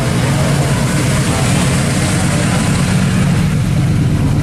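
Engines of classic cars, a first-generation Chevrolet Camaro convertible and another classic coupe, driving slowly past at low speed. Their exhaust gives a steady low note with no revving.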